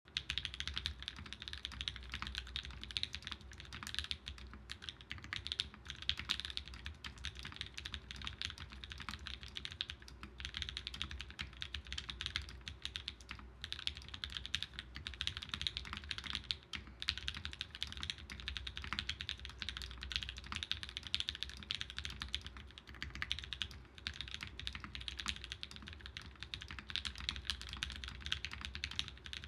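Custom mechanical keyboard (Think6.5 V2, polycarbonate case, FR4 plate, Mauve switches, GMK Bento keycaps, Durock V2 stabilizers lubed with Krytox 205g0) being typed on continuously, a fast, dense run of keystroke clacks with brief pauses between bursts.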